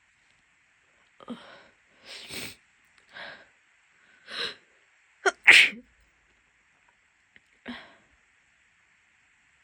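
A woman with a head cold sneezing in a fit, not stifled: about seven short sharp bursts of sneezes and catching breaths, the loudest a little past halfway.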